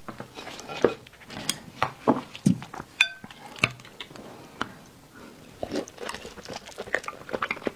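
Chopsticks knocking and scraping in a porcelain bowl of sauced sheep-tail fat, with one ringing clink about three seconds in. Near the end come wet biting and chewing sounds as a piece is eaten.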